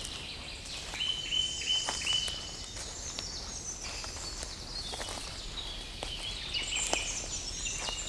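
Several songbirds singing together in a spring forest, with high trills and chirps throughout and one bird repeating a clear whistled note three times about a second in. Scattered clicks and crunches of footsteps on the leaf litter and twigs are heard under the song.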